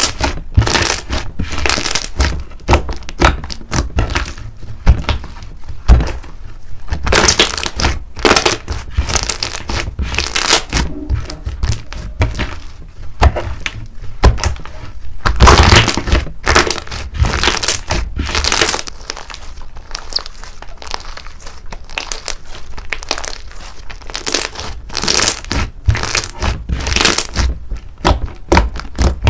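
Thick white slime being squeezed, pressed and stretched by hand, giving a dense, irregular run of sticky clicks and pops.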